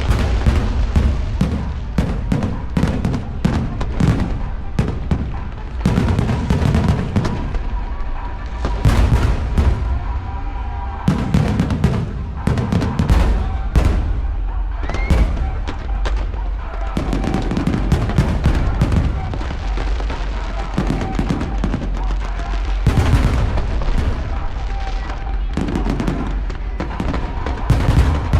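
Fireworks display: aerial shells bursting in rapid succession, with dense sharp cracks and crackling over deep booms.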